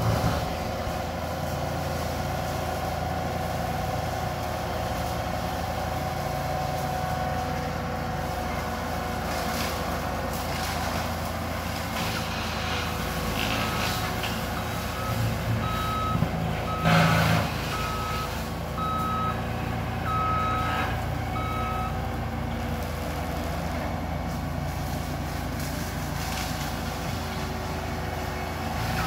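Engine of the machine carrying the Alpha Wolf XP mulcher, running steadily. Its backup alarm beeps about once a second for several seconds midway as it reverses, with a brief louder burst of noise partway through the beeping.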